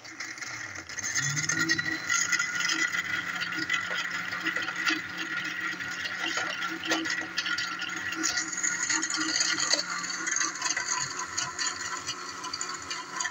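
Electric blender blending frozen strawberries with water into juice. The motor spins up over the first second or so, then runs steadily with the jar contents rattling.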